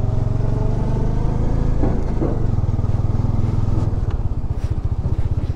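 Bajaj Dominar 400's single-cylinder engine running steadily under way. About four seconds in, the note eases into slower, more separate beats as the throttle comes off.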